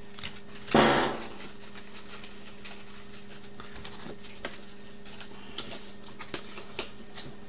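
Trading cards being handled and sorted by hand: a brief swish about a second in, then scattered light clicks and taps of cards, over a steady low hum.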